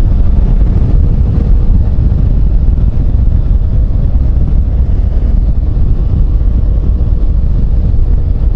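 Motorcycle riding at steady speed: loud wind rush on the microphone over engine and road rumble.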